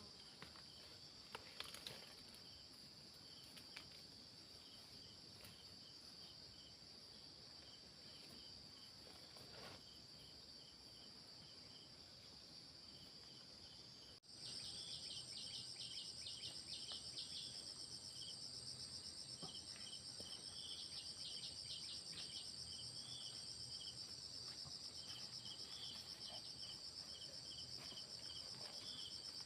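Steady high-pitched insect chorus, with short chirps repeating several times a second. About halfway in it cuts off abruptly, then resumes louder.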